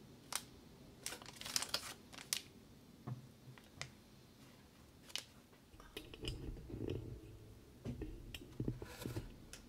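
Plastic gummy-candy pouch crinkling and rustling in the hands as it is turned over, with scattered small crackles and clicks and a few soft low bumps in the second half.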